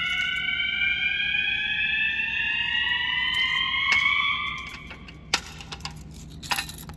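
System Sensor horn strobes sounding the slow whoop tone, a steady upward pitch sweep, during a fire alarm walk test. The sweep stops about four and a half seconds in, and light clicking and rattling follow.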